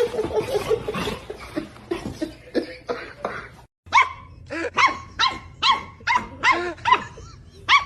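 A dog barking in quick succession, about two barks a second, starting after a brief silent break about four seconds in. Before the break there is a noisier jumble of short sounds.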